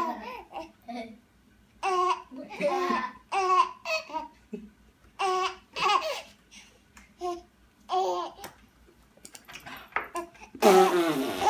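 Five-month-old baby laughing and babbling in short high-pitched bursts with brief pauses between them, and a louder burst near the end.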